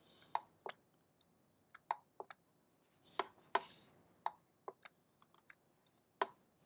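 Computer mouse clicks and keyboard key presses while 3D-modelling software is operated: a dozen or so faint, sharp clicks at uneven spacing, with a couple of softer, longer ones about three seconds in.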